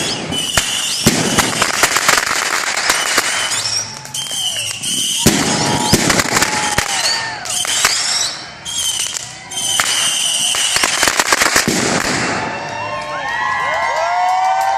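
Fireworks going off in quick succession: dense crackling and popping mixed with whistles, several of which glide in pitch, with two short lulls partway through.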